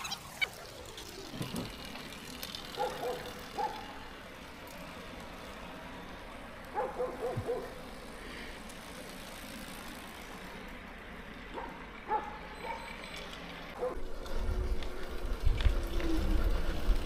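Quiet outdoor background with a few clusters of short, high squeaks or beeps, then low wind rumble on the microphone rising from about fourteen seconds in.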